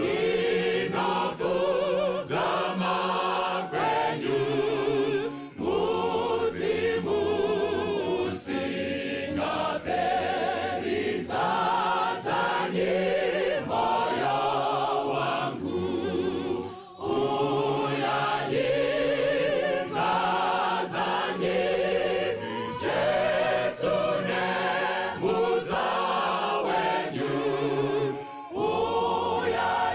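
A choir or congregation singing a hymn unaccompanied, in several voices, in phrases with short breaths between them.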